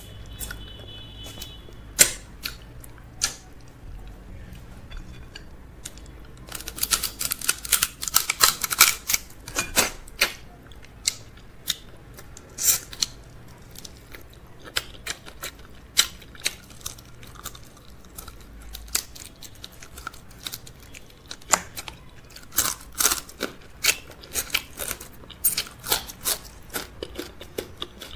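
Close-miked eating: a person chewing fufu with okra soup and crab, with many sharp mouth clicks and crackles, coming thickly about seven to ten seconds in and again from about twenty-one to twenty-seven seconds in.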